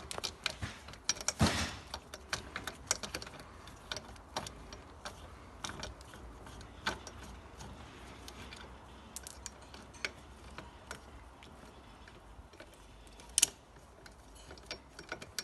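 Light metal clicks and taps of hand tools on small bolts and fittings as they are undone and taken out, at an irregular pace, with a sharper clack about a second and a half in and another near the end.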